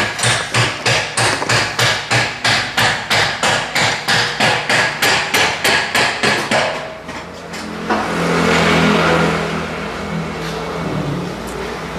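A hammer striking metal in a steady run of ringing blows, about three a second, while a suspension part is worked on. The blows stop about six and a half seconds in. A steady hiss with a low hum follows from about eight seconds.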